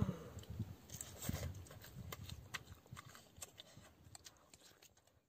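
Eating sounds: roasted rat meat being torn apart by hand and chewed, faint scattered crackles with soft low thumps that thin out toward the end.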